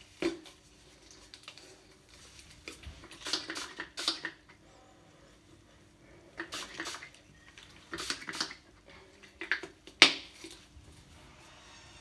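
Irregular clusters of sharp clicks and rustles as small items are handled close to the microphone, with one louder click near the end.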